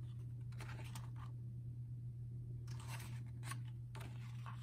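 Pages of a K-pop album photobook being flipped by hand: a few short papery swishes and rustles, in clusters about a second in, near three seconds and just after four seconds, over a steady low hum.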